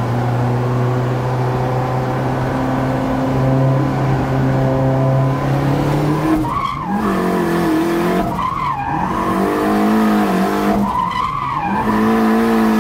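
Toyota Hilux drift truck's engine held at a steady high note for about six seconds, then dipping and rising in pitch three times, with tyres squealing as the truck slides.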